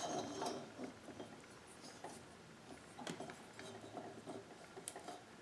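Light clicks, taps and scrapes of a finned chainsaw cylinder being handled and repositioned against a mini lathe's chuck.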